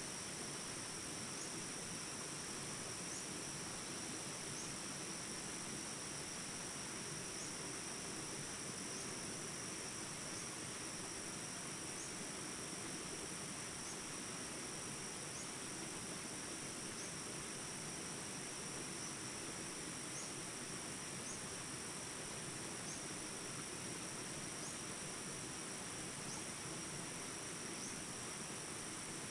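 Jungle ambience recording: a steady high-pitched insect chorus with a short chirp about every second and a half, over the even rushing of small stream rapids.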